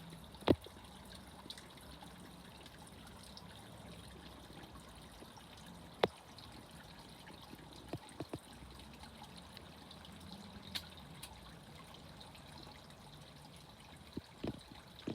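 Fountain water trickling softly and steadily, broken by a few sharp clicks, the loudest about half a second in and another about six seconds in.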